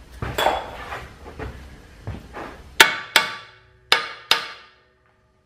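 Steel tools clanking on a threaded-rod sleeve press, then four sharp metal-on-metal strikes in two quick pairs, each ringing briefly.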